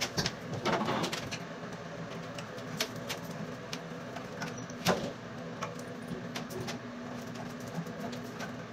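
Scattered light clicks and knocks of plastic shower-head parts being handled and fitted, a little louder near the start and about five seconds in, over a steady low hum.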